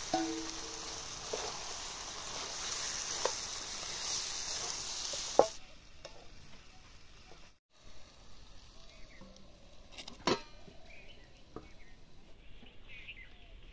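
Raw chicken sizzling in hot oil among fried potato wedges in a steel kadai, with the steel spatula tapping and scraping the pan as it stirs. The sizzling drops away sharply about halfway through, and a steel lid clanks onto the pan about ten seconds in.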